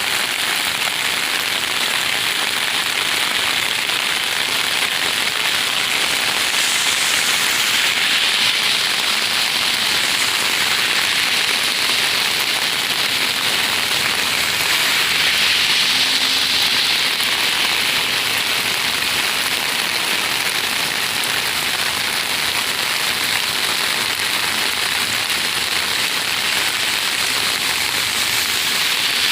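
Steady heavy rain falling and pattering on surfaces, an even hiss.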